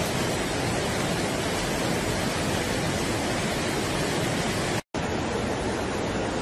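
Muddy floodwater rushing past, a steady even noise. It breaks off for an instant about five seconds in, then carries on.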